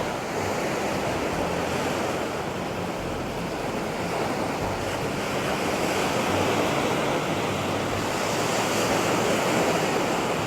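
Surf washing onto a sandy beach, a steady rushing that swells a little in the second half, with wind buffeting the microphone.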